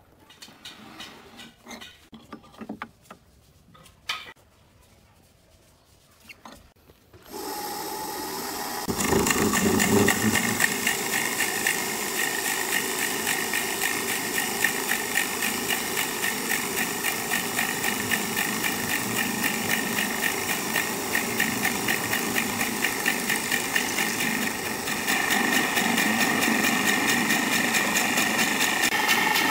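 Wood lathe starting up about seven seconds in and running steadily with a wooden vase blank spinning on it, a machine hum with a fast, even flutter. It gets louder about two seconds after starting and again near the end.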